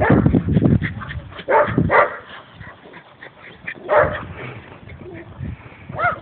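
Dog barking a few times, short pitched calls spaced a second or more apart, over a low rumbling noise.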